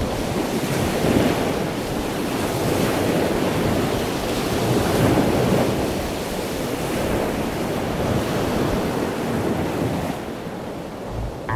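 Surf breaking and washing onto the shore, swelling and easing every few seconds, with wind buffeting the microphone.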